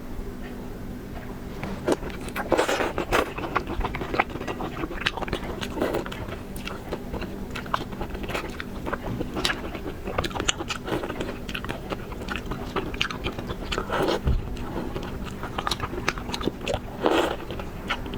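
Close-up eating sounds of someone biting and chewing shrimp: many small wet clicks and crunches, with louder bites about three seconds in, around fourteen seconds and again near seventeen seconds.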